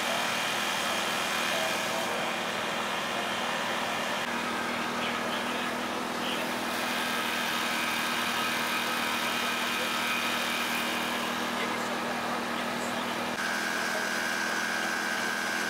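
Engine running steadily at the rescue scene, a constant hum whose higher whine steps to a new pitch a few times.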